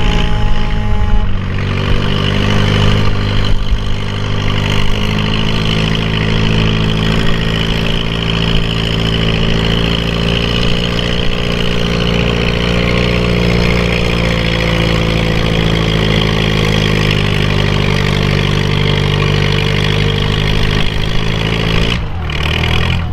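Farm pulling tractor's engine held at a steady high throttle, its pitch drifting only slightly for about twenty seconds, then dropping off abruptly near the end.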